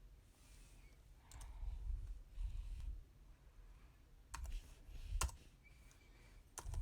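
A few scattered sharp clicks and taps on a tablet and its keyboard, with low bumps of the device being handled.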